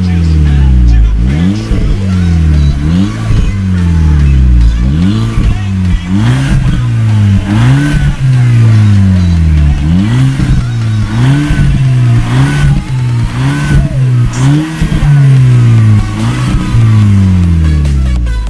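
Mk5 VW Golf GTI's 2.0-litre turbocharged four-cylinder revved over and over at the twin exhaust tips: quick blips that rise sharply in pitch and sink back, about one a second, with one longer hold near the end before it falls away.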